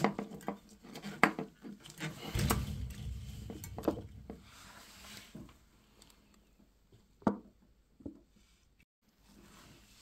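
Plastic pipe fittings and a metal hose clamp being handled while a non-return valve is pushed onto a macerator toilet's outlet: scattered clicks and knocks, with a brief low rumble about two seconds in, then a quieter stretch with a sharp knock about seven seconds in.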